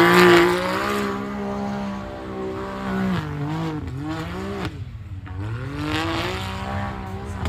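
Side-by-side UTV engine revving hard through a dirt course, its pitch rising and falling as the throttle is worked. It is loudest at the start, dips briefly about five seconds in as the driver lifts off, then climbs again.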